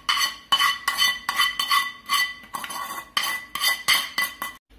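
A steel spoon scraping and knocking against a metal pan, about two or three strokes a second, each with a metallic ring, as thick pickle masala paste is scraped out into a bowl. It stops suddenly near the end.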